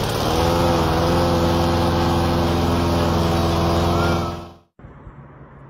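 Walk-behind lawn mower's small engine running steadily and loudly, then stopping abruptly about four and a half seconds in.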